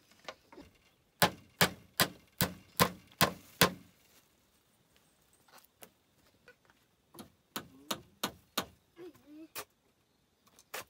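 Hammer driving nails into bamboo wall slats: a quick run of about eight sharp blows, roughly three a second, then after a pause a second run of lighter ones.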